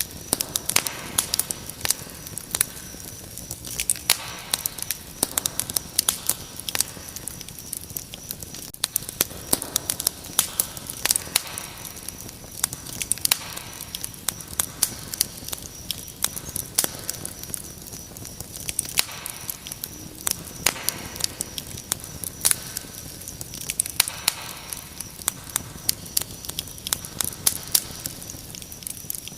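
Wood fire crackling with frequent sharp pops and snaps, over a steady high-pitched cricket trill.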